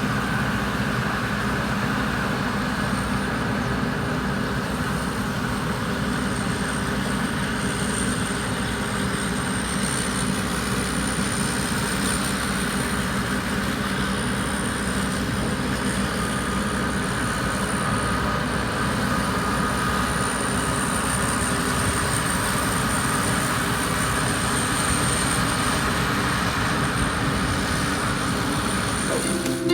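Rice combine harvester built by Phimai Charoen Karnchang running steadily, its engine and machinery giving a loud, even drone with a thin high whine over it.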